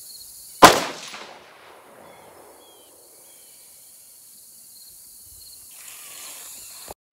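A single rifle shot from an AR-15 with an 18-inch .223 Wylde match barrel: a sharp crack less than a second in, its echo dying away over about a second. Insects buzz steadily in the background.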